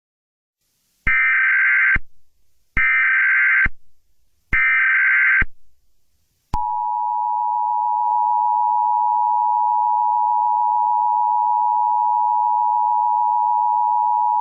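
Emergency Alert System header: three short bursts of SAME data tones, each just under a second, with gaps between them. Then, about six and a half seconds in, the steady two-tone EAS attention signal begins and holds.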